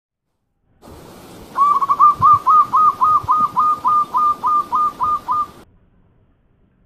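Zebra dove (perkutut) calling a fast run of about fifteen short, even notes, about four a second, over a faint hiss; the run stops abruptly.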